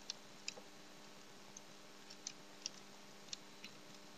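Faint computer keyboard typing: about a dozen light, irregularly spaced keystroke clicks over a steady low hum.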